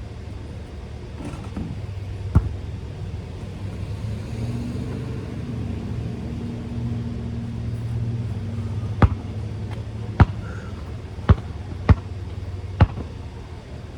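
A basketball bouncing on pavement: one bounce early, then five dribbles about a second apart near the end. A passing car's engine hum swells and fades in the middle.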